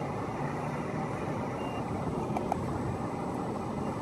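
Steady low outdoor rumble of distant road traffic, with one faint short beep about one and a half seconds in.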